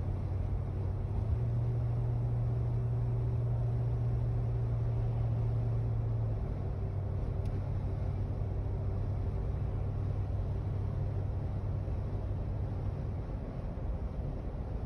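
Cab interior of a Dodge Ram Van B250 cruising at about 50 mph: the 318 V8 engine drones steadily under road and wind noise. The pitch of the drone shifts slightly about a second in and again about six seconds in. No whistle comes from the vent windows, which have new seals.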